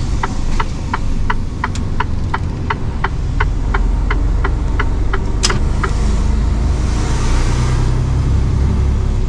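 Turn indicator of a Mercedes-Benz Actros truck ticking about three times a second over the low drone of its diesel engine, heard inside the cab as the truck turns. The ticking stops with a sharper click about five seconds in, and a rushing hiss follows while the engine note rises.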